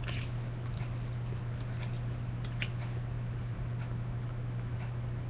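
Soft lip smacks and pops of puffing on a freshly lit tobacco pipe, a few faint clicks, over a steady low hum.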